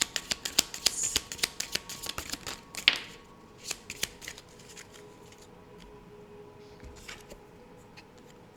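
Tarot deck being shuffled by hand: a quick run of papery card slaps, about four a second, ending about three seconds in with one louder snap, then only a few faint card sounds.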